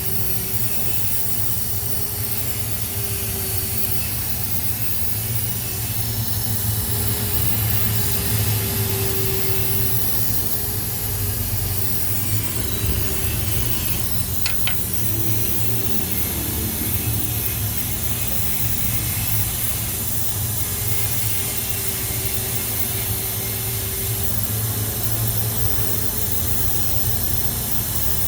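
Steady mechanical hum with a constant hiss, with a brief high chirp about halfway through.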